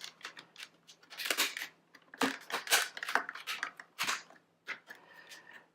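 Hard plastic parts of a Dyson V6 stick vacuum clicking, knocking and scraping as the clear dust canister is fitted back onto the main body, in irregular clusters of clicks and rattles.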